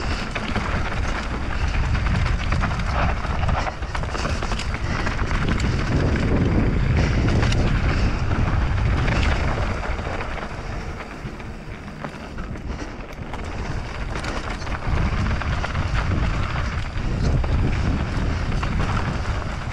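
Mountain bike riding down a dirt trail: wind buffeting the microphone, tyres on loose dirt and the bike rattling over bumps, with many small knocks throughout. It eases off briefly about halfway through, then picks up again.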